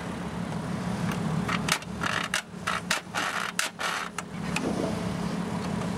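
A hand file rasping in a run of quick, irregular strokes from about one and a half to four and a half seconds in, cutting a notch into the grille's aluminum bottom piece. The Rialta camper's engine idles with a steady low hum underneath.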